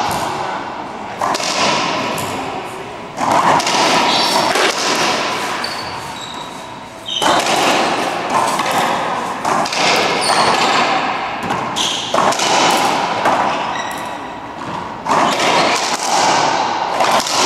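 Racquetball rally: the ball cracking off racquets and the court walls every two to four seconds, each hit ringing in the enclosed court's echo.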